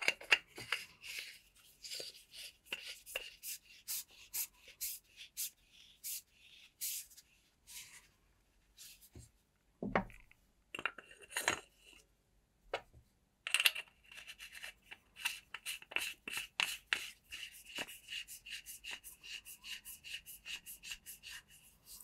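The metal threads of a flashlight's battery tube being screwed and unscrewed by hand: a run of short, dry scraping clicks, two or three a second, metal rubbing on metal. A soft thump about halfway through.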